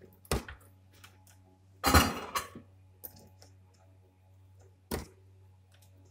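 Handling noise from an opened plastic extension board and its wires on a wooden table: a knock, a short louder clatter about two seconds in, and another sharp knock near five seconds. A steady low hum runs underneath.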